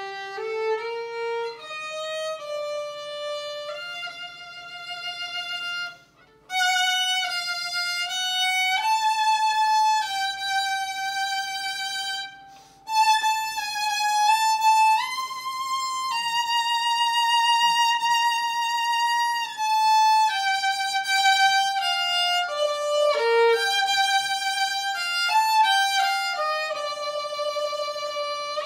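Solo violin played with the bow, unaccompanied: a melody of mostly held notes, with two brief breaks between phrases about six and twelve seconds in.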